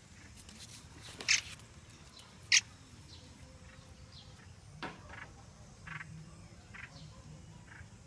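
Small birds chirping: short, high calls, two loud ones about a second and two and a half seconds in, then fainter chirps spaced through the rest.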